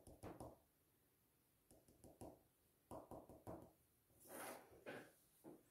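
Faint scratching of a pencil drawing short strokes on paper, in a few separate bursts, with a soft handling noise of pencils being picked up a little past the middle.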